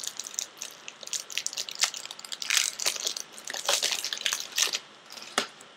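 Topps Chrome baseball cards and their foil pack wrappers being handled: irregular crinkling rustles with sharp clicks, thinning out near the end.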